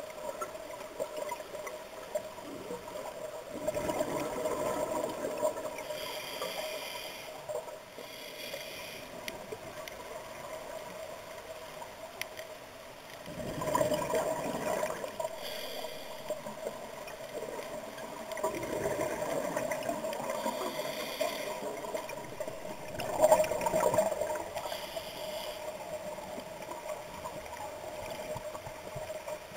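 Scuba diver breathing underwater through a regulator: exhaled bubbles gurgle past in surges a few times, with short hissing inhalations between them, over a steady hum.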